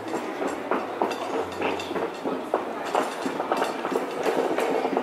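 Clatter of movement across a hard tiled floor: a rapid, irregular run of clicks and knocks over a steady low hum.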